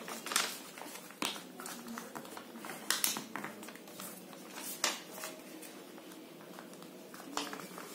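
Origami paper being folded and creased by hand: rustling and crinkling, with a few sharper crackles as the folds are pressed flat against the table.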